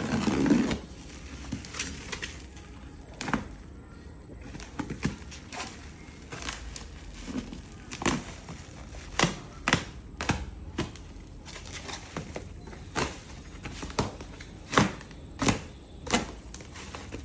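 Irregular clicks, taps and knocks, one or two a second at most, from a ladder parcel being opened and its packing handled.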